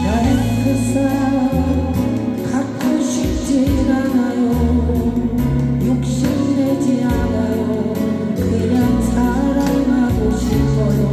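A song sung over instrumental accompaniment, with a stepping bass line under a wavering vocal melody.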